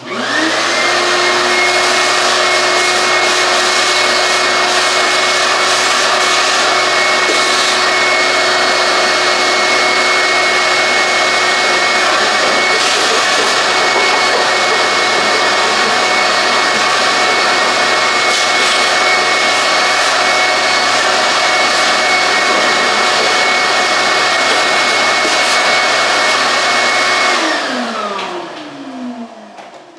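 Wet/dry shop vacuum switched on, its motor whine rising quickly to speed and then running steadily while vacuuming out a car's air filter housing full of dirt-dauber nests. It is switched off near the end, the whine falling as the motor winds down.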